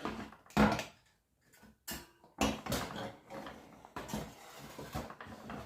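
Pedestal fan being turned over and handled: a sharp knock about half a second in, then irregular knocks and rubbing.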